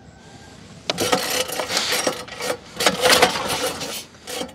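Small petrol boat engine being pull-started again and again without catching: from about a second in, a run of rough, rattling strokes, each a yank of the recoil starter turning the engine over. The engine is flooded with petrol.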